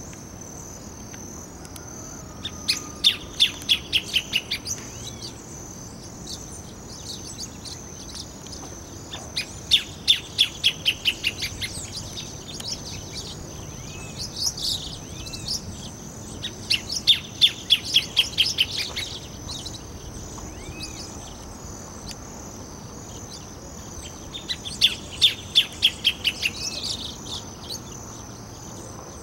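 Greater thornbird (Phacellodomus ruber) singing: four bouts of a rapid series of loud, repeated notes, each bout lasting two to three seconds and falling slightly in pitch, with a few softer notes in between. A steady high insect buzz runs underneath.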